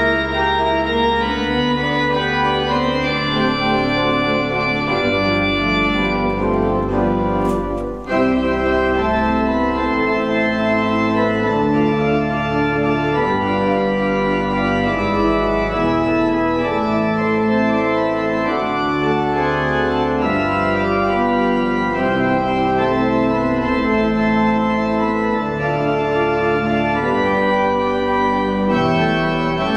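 Organ music: sustained chords that change every second or two, with a brief dip and a click about eight seconds in.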